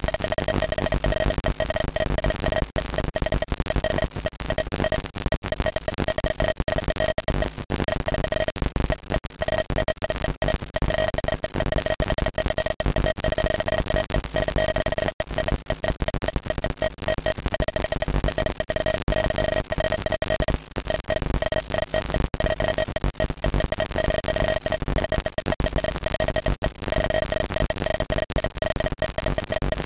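Chaotic 8-bit computer sound from a ZX Spectrum 256-byte intro: a harsh noisy crackle with a steady buzzing tone running through it, chopping rapidly on and off without a tune.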